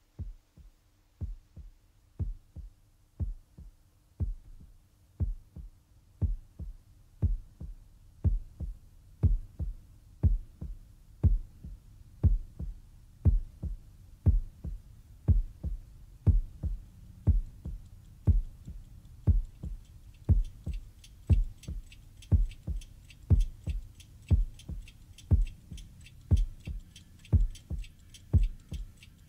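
A slow heartbeat sound effect: a double thump about once a second, fading in and growing louder. From about two-thirds of the way through, fast, crisp clock ticking joins in over the beat.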